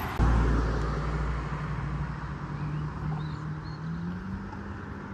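Wind buffeting the microphone as a heavy low rumble that slowly fades, over a distant engine hum that holds steady and then rises slowly in pitch near the end.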